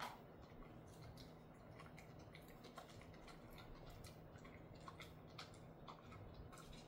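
A dog chewing a dried chicken-and-salmon stick treat: faint, irregular crunching clicks, about two a second.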